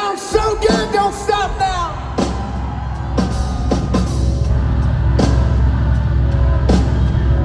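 Live rock band heard from the crowd in an arena: a wavering vocal line over the band for the first two seconds, then a steady bass with a few sharp drum hits.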